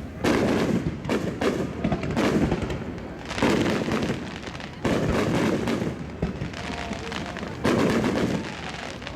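Aerial fireworks shells bursting: four big bangs, at the start, about three seconds in, near five seconds and near eight seconds. Each is followed by a crackling, rumbling fade, with smaller pops and crackles in between.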